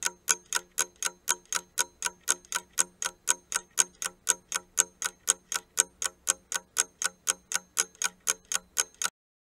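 Clock-ticking countdown sound effect, even ticks at about four a second, stopping about nine seconds in.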